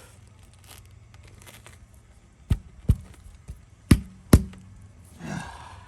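Four sharp knocks on a tire as a plug insertion tool is forced into a puncture through the steel belt, then a short strained grunt near the end.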